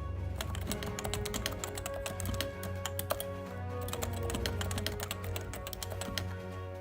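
Rapid typing on a Topre Type Heaven keyboard, a dense run of keystrokes on its Topre capacitive switches, with background music underneath.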